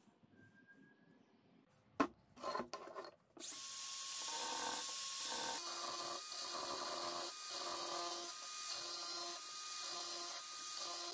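A couple of clicks and handling knocks, then about three seconds in a cordless angle grinder's cut-off disc starts cutting into the steel can of a used oil filter: a steady high whine with a grinding note that swells and eases a little more than once a second as the disc bites into the metal.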